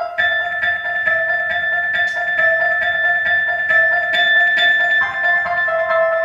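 Live band music led by a keyboard, playing evenly repeated notes, about two a second, over a held chord that shifts near the start and again about five seconds in.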